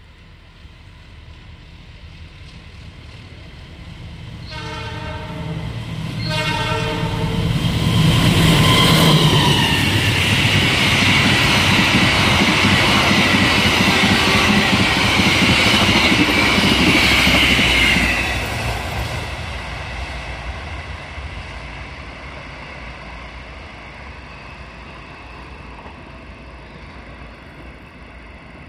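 Passenger train's horn sounding two short blasts, then the train passing through at speed with its wheels clattering on the rails. The sound is loudest for about ten seconds, then fades away as the train goes on.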